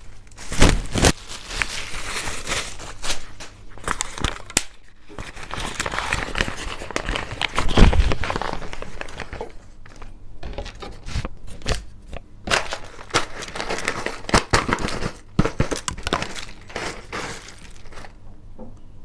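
Paper wrapping of a nasi bungkus rice packet being unfolded and opened by hand, crinkling and rustling in irregular bursts, with a couple of heavier thumps about a second in and near the middle.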